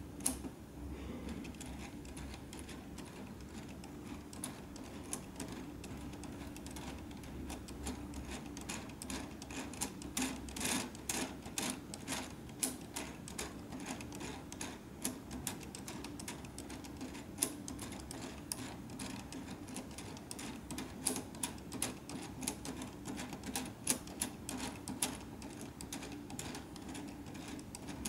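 Plastic LEGO Technic gears running and rattling inside a sequential 3+R gearbox turned by hand, with many irregular sharp clicks from the gear teeth and the rotary shift catch.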